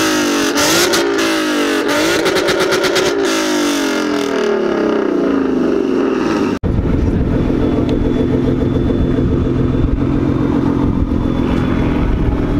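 Ford Mustang V8 revved hard again and again, its pitch rising and falling, with a quick run of crackles about two to three seconds in. After an abrupt cut about six and a half seconds in, a car engine idles steadily.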